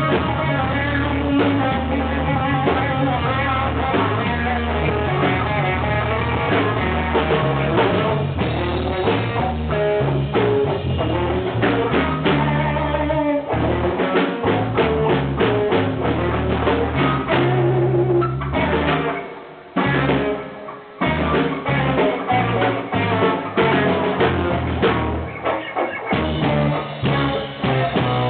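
Blues band playing: drum kit, bass and guitar together, with the band dropping out briefly about twenty seconds in before coming back in.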